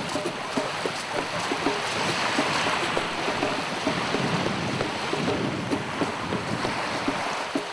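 Baltic Sea waves washing onto the shore in slow surges, with wind buffeting the microphone.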